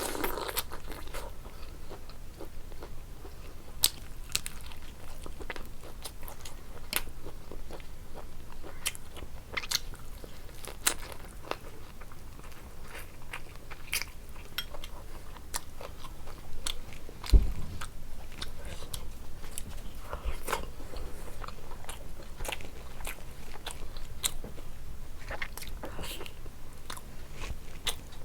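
Close-up eating sounds: a person chewing and biting food, with many short crunches and wet mouth clicks. One louder knock comes a little past halfway.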